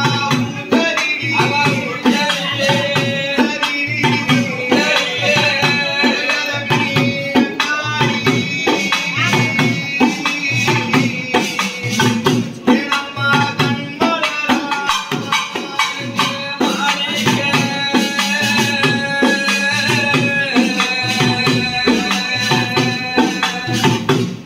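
Tamil temple folk percussion: pambai drums and an udukkai hourglass drum beating a fast, dense, steady rhythm, with a held melody over it.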